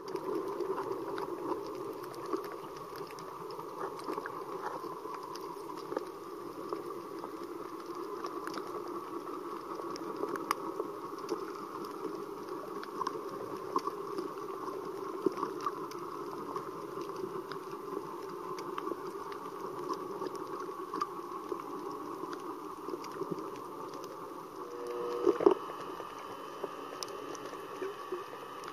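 Underwater ambience on a coral reef: a steady muffled hiss with many scattered sharp clicks and crackles, and one louder short burst near the end.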